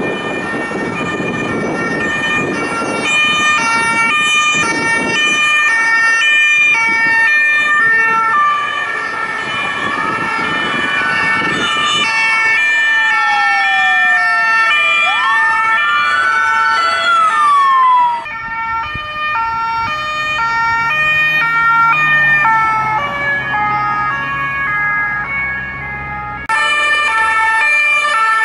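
Several French emergency-vehicle two-tone sirens sounding at once over road traffic, the alternating high-low notes overlapping. About ten seconds in, a siren sweeps down and back up twice. The sound changes abruptly twice, near the two-thirds mark and near the end.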